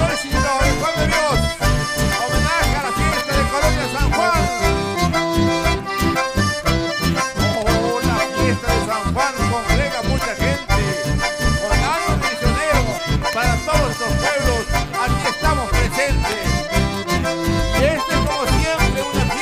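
Live band music led by two button accordions, with guitars and a strong, regular bass beat.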